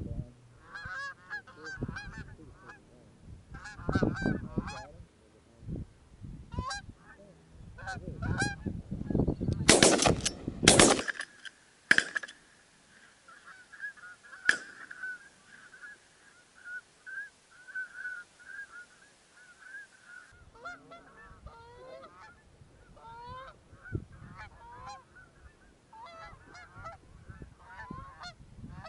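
Canada geese honking repeatedly as flocks fly over. A few louder bumps and rustles close to the microphone break in about four seconds in and again around ten seconds in.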